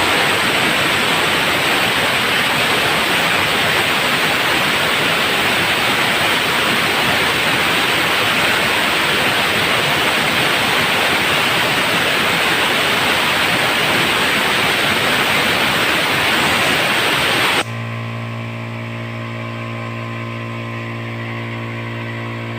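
Compressed air hissing loudly and steadily out of a small air compressor's tank as it is bled down. About seventeen seconds in, the hiss cuts off and the compressor's electric motor takes over with a steady hum: the pressure switch has cut it back in, at about 80 PSI.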